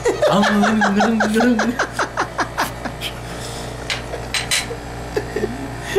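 A man laughing in quick, even bursts for about three seconds, then a few light clicks.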